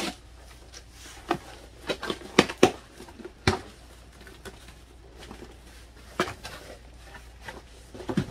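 Cardboard shipping box being opened and unpacked by hand: scattered short knocks and rustles, the sharpest a little over two seconds in.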